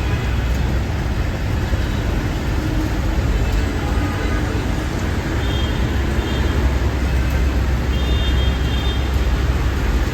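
Steady street traffic noise with a heavy low rumble, and faint brief high tones about halfway through and again near the end.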